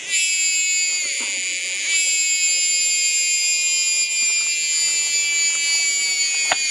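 Cicada singing: a loud, shrill, continuous buzz that swells up again about two seconds in and then holds steady.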